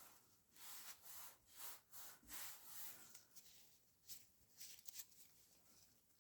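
Faint rubbing strokes as the surface of an old trading card is wiped to lift grime, a run of short strokes with a quieter pause around the middle.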